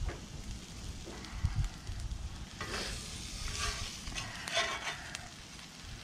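Metal spatula scraping and pushing food across the steel top of a Blackstone flat-top griddle, a few scraping strokes in the middle, over a light sizzle of food cooking.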